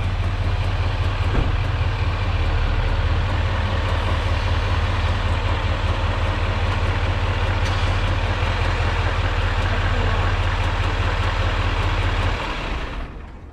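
2020 Chevrolet Silverado HD's L5P Duramax diesel V8 idling with a steady low drone. The drone falls away near the end.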